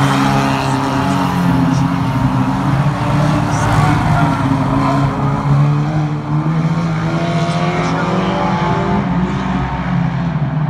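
Several banger-racing cars, old saloon cars, racing round a short oval with their engines running hard together. The engine notes overlap and rise and fall as the cars lap.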